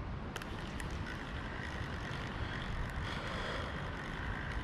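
Wind rumbling on the microphone over steady outdoor hiss, with a couple of light clicks about half a second in.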